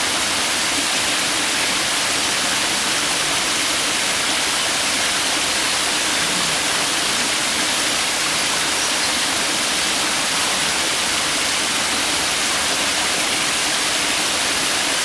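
A stream rushing over rocks: a steady, even hiss of running water with no break or change.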